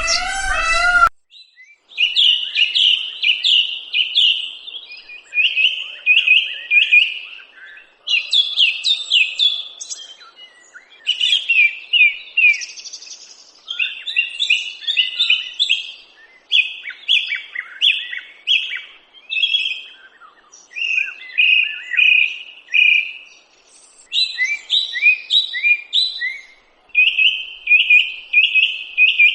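A songbird singing: phrases of several quick, clear chirps, each phrase lasting two or three seconds, repeated over and over with short pauses. The tail of a cat's meow cuts off about a second in.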